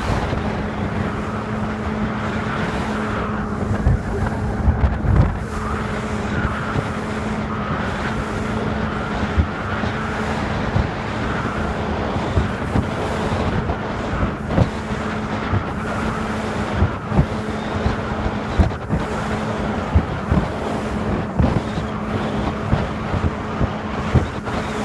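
Evinrude E-TEC 115 two-stroke outboard running steadily at half throttle, pushing an aluminium boat at speed, with a constant drone. Wind noise on the microphone and irregular low thumps run through it.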